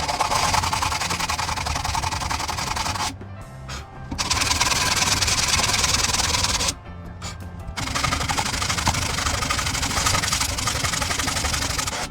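A woodworking power tool running in three long stretches, cutting out twice for about a second each time, over background music.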